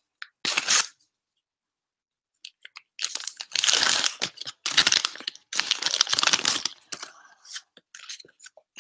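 A sticker packet being torn open and its wrapper crinkled by hand: a short rip about half a second in, then after a pause three longer bouts of tearing and crinkling, and a few small rustles near the end.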